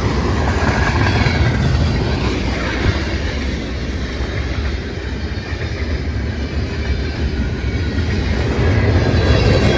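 Freight train passing, a steady loud rumble of rolling cars on the rails with no horn.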